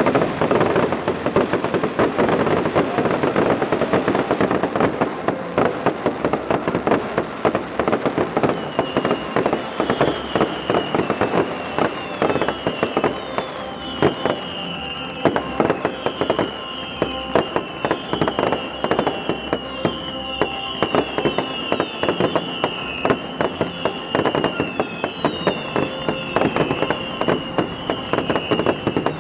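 Fireworks finale: a dense, continuous barrage of rapid bangs and crackling. From about nine seconds in, a high wavering whistle rises over it again and again.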